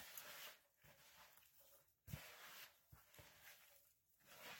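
Faint squishing and rustling of gloved hands kneading a raw ground-chicken and shredded-cheese mixture in a plastic bowl, in strokes about two seconds apart.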